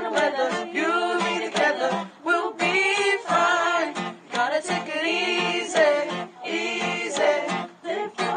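A man singing a song to his own strummed acoustic guitar, holding long notes between shorter phrases.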